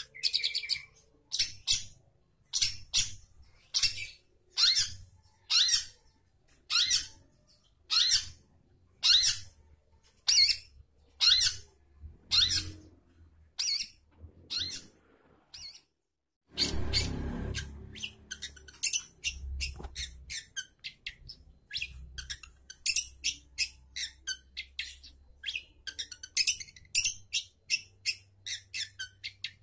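Long-tailed shrike giving harsh, scratchy calls about once a second. After a short gap about halfway, the calls come quicker and shorter, several a second.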